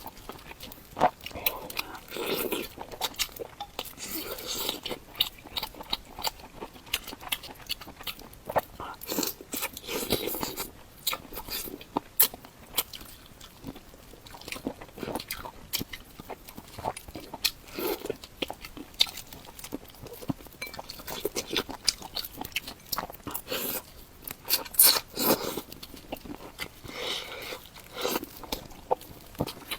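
A person biting and chewing spicy mala bullfrog, close to the microphone: crunching with many irregular short clicks.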